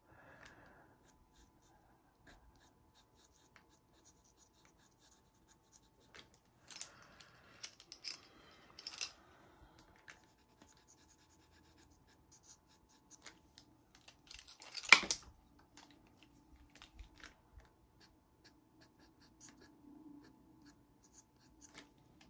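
Faint scratching of a pastel pencil drawn in short strokes over pastel card, coming in a few clusters, with one sharp knock a little past halfway.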